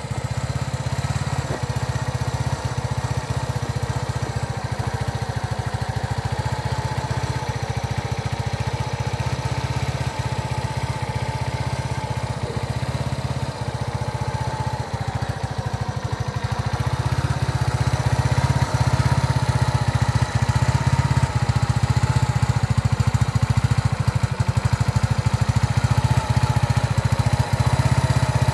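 1995 Yamaha SR125's single-cylinder four-stroke engine idling steadily, growing louder about two-thirds of the way through.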